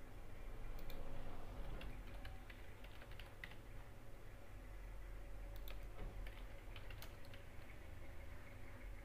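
Scattered, irregular computer keyboard key clicks over a low steady hum.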